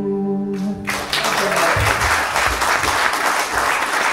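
The last chord of an acoustic guitar song rings and stops about a second in, and then the audience applauds.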